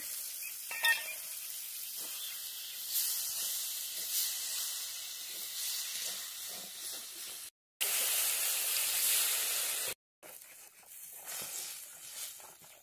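Mutton masala and vegetables sizzling as they fry in a kadai while being stirred with a metal spatula. The hiss breaks off twice for a moment, once about halfway through and again a couple of seconds later.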